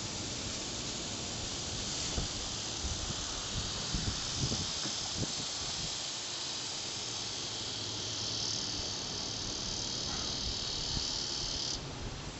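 A steady, high-pitched drone of insects that grows louder about eight seconds in and cuts off sharply near the end. There are a few low thumps in the first half.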